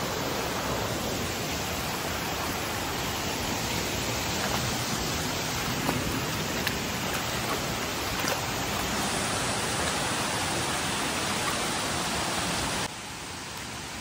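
Fast hill stream rushing over rocks, a steady, even rush of water; it drops suddenly to a quieter rush about a second before the end.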